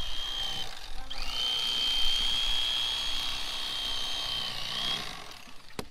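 Corded electric fillet knife running with a steady high whine as it cuts through a fish. It runs briefly, stops for a moment, then runs again for about four seconds, its pitch rising slightly just before it stops near the end.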